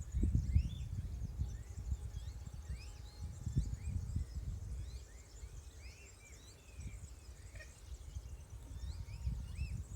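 Small birds calling around a pond, with many short, arched chirps overlapping throughout. Under them is a low, uneven rumble that comes and goes and is loudest about half a second in and again near four seconds.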